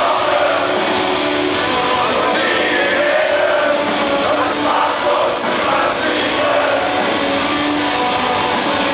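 Live rock band playing loud, with a man singing into the microphone over electric guitar and drums.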